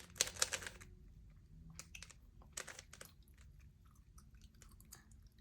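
Plastic Rubik's Cube being handled and turned by hand: a quick run of clacks in the first second, another about two and a half seconds in, and scattered lighter clicks between.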